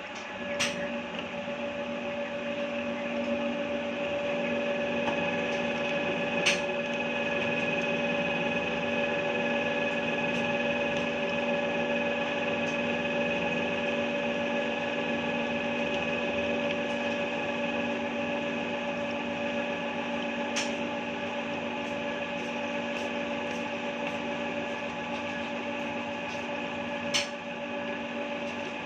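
CP electric pipe threading machine running steadily, its motor and gearing giving a constant hum made of several fixed tones. A few sharp clicks or knocks come over it, about half a second, six seconds, twenty seconds and twenty-seven seconds in.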